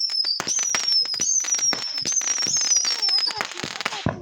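Consumer fireworks going off: a run of high whistles, each falling slightly in pitch and starting over again and again, over constant crackling pops. It ends with a louder bang near the end, after which the sound dies away.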